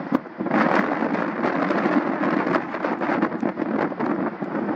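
Gusty wind buffeting the microphone: a rough rumble with crackles that grows loud about half a second in and stays loud.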